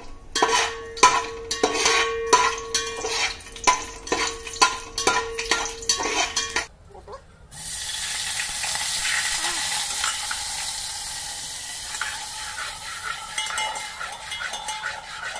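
A steel slotted spoon knocks and scrapes repeatedly against an aluminium pot as whole spices fry in ghee, and the pot rings with each stroke. After a short pause, about seven seconds in, water poured into the hot ghee sets off a loud, steady sizzle, stirred now and then.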